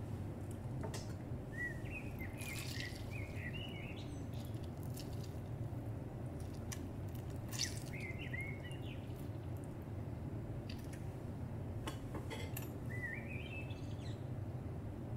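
A bird chirping in three short runs of quick rising notes, over a steady low hum, with a few light clicks in between.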